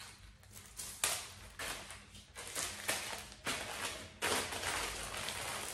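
Plastic jewelry packets and a plastic mailer bag crinkling and rustling as they are handled, in short irregular crackles that turn almost continuous about four seconds in.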